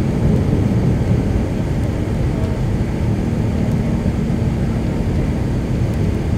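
Airbus A380's Rolls-Royce Trent 900 turbofans at climb power after takeoff, heard inside the cabin over the wing: a steady low roar with a faint steady hum.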